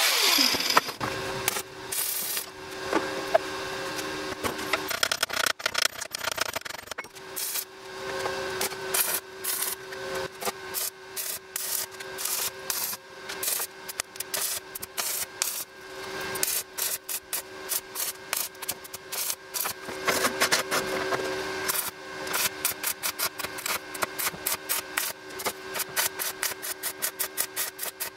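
Stick-welding arc crackling and spattering on steel. The crackle is irregular at first and settles into a fast, fairly even crackle near the end.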